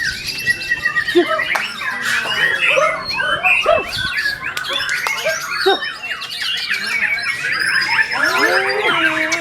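White-rumped shama singing a rapid, varied song of quick whistled glides, chirps and harsher squawk-like notes, with lower sweeping notes near the end.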